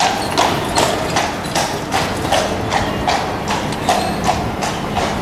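A horse's hooves clip-clopping on a hard street in an even rhythm, about three strikes a second.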